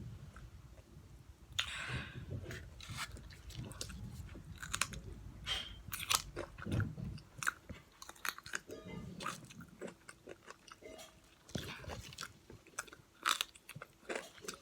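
Close-up chewing and biting into crunchy fried chicken: irregular crisp crunches and wet mouth sounds, several a second at times, with short pauses between bites.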